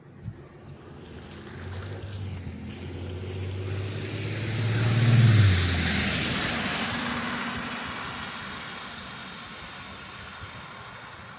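A car drives past on a wet road. Its engine hum and tyre hiss swell to a peak about five seconds in, the engine note drops as it goes by, and the sound fades slowly away.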